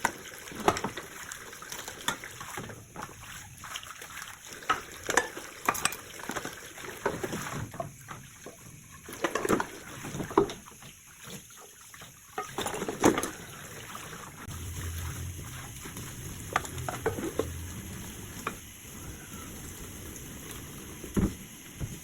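Kitchen work sounds: dishes and utensils clinking and clattering, with water splashing, in irregular short knocks throughout.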